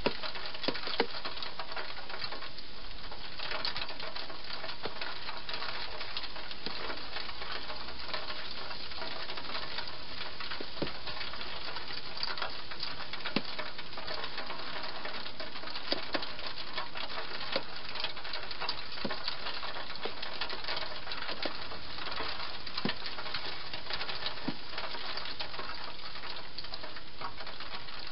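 Hedgehog eating inside a clear plastic feeding box: small irregular clicks and crunches of chewing, over a steady hiss.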